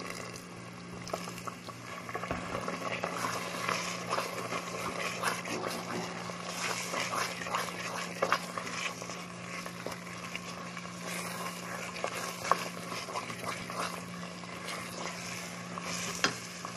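Thick berbere-and-onion paste sizzling and bubbling in a metal pot as a wooden spoon stirs it, with scraping and a few sharper knocks of the spoon against the pot, over a steady low hum.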